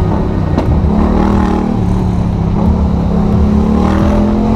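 Motorcycle engine running while riding in traffic, its note steady with a slight dip and then climbing near the end as the bike accelerates. There is low wind rush on a helmet-mounted microphone.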